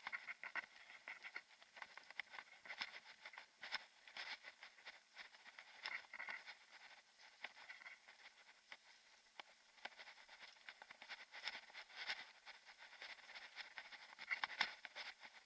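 Faint, irregular rattling and clicking of a mountain bike rolling over a rough dirt and gravel track, heard through the action camera riding on the bike or rider.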